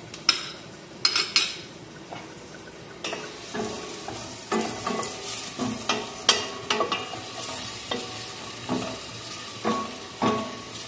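Chopped onion sizzling in vegetable oil in a stainless steel pot, stirred with a wooden spoon that scrapes and knocks against the pot about every half second; the onion is frying until translucent. A few sharp clinks come at the start.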